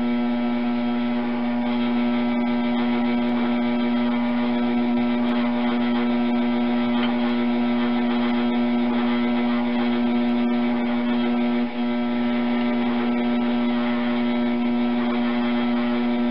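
Electric potter's wheel motor running steadily while clay is thrown: a steady hum that dips briefly about twelve seconds in.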